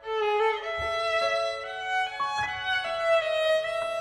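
Violin playing a slow melody of long bowed notes that starts a new phrase at the outset, sliding into some notes, with a few soft low notes beneath.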